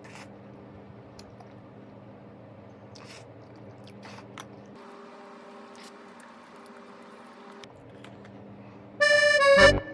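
Quiet, steady background with faint held tones and a few soft clicks, then loud music starts abruptly near the end.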